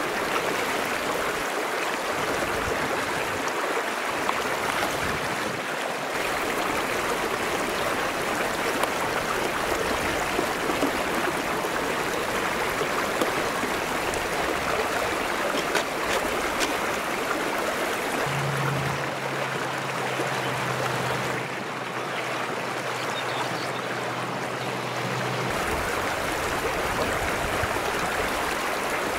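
Shallow mountain stream flowing over flat rock slabs, a steady rush of water. A low steady hum joins for several seconds past the middle.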